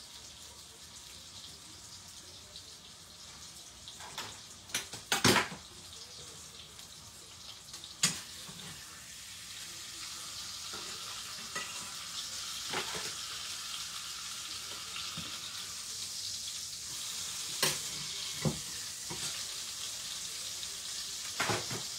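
Chicken pieces frying in oil and sauce in a stainless steel pan: a steady sizzle that grows a little louder about halfway through. A few sharp clinks of a metal fork and spatula against the pan, the loudest a few seconds in.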